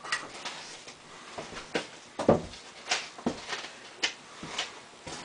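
Scattered soft knocks and scrapes as thick energy-bar dough is scooped out of a stainless steel stand-mixer bowl and into metal loaf pans, about six in all at uneven intervals.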